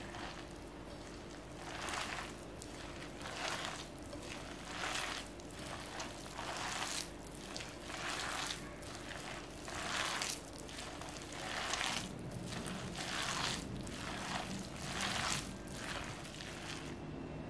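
A hand squeezing and kneading grated zucchini with flour in a glass bowl, making wet squishing and rustling strokes about one a second that stop shortly before the end.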